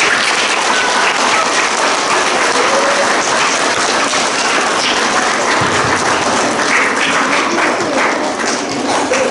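An audience of schoolchildren and staff applauding, one long sustained round of clapping.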